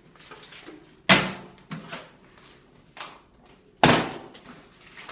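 Plastic water bottle flipped and landing on a marble countertop: two sharp thuds about three seconds apart, with lighter knocks between. After the second landing the bottle is lying on its side: it has fallen over.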